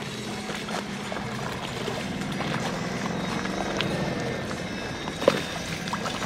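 Small outboard motor on an inflatable tender running steadily at low speed, its pitch shifting slightly as the throttle changes. A single sharp knock about five seconds in.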